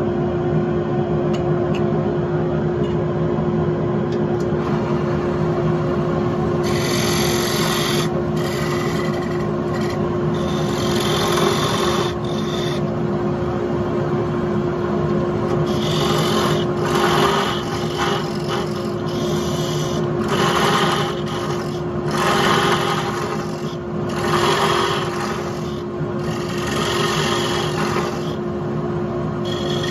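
Wood lathe motor humming steadily as the workpiece spins. At first an abrasive pad rubs against the spinning wood. From about seven seconds in, a turning tool cuts into the wood in repeated scraping, hissing passes, each a second or two long.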